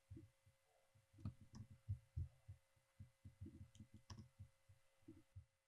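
Near silence with faint low thuds in an uneven rhythm, a few soft clicks and a faint steady hum.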